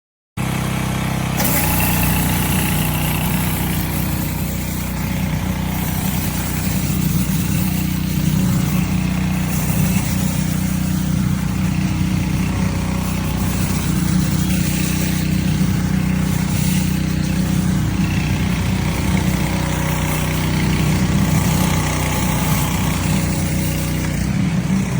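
Small gas pressure-washer engine running steadily under a broad, even hiss, starting abruptly a moment in.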